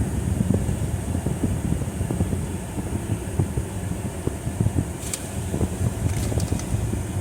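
Steady low rumble of road and engine noise inside a moving car's cabin, with a few faint clicks about five seconds in.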